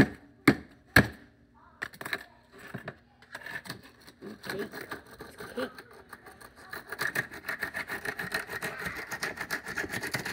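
Sharp blows striking a plastic computer mouse, about two a second, the last about a second in; then dense, rapid clicking and rattling of the mouse's plastic being worked at and broken apart, thickening over the second half.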